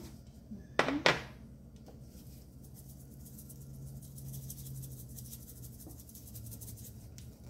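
Two sharp clicks from a spice shaker's plastic flip-top lid about a second in, then a rapid, fine rattling hiss as seasoning is shaken out of the shaker over raw burger patties for several seconds.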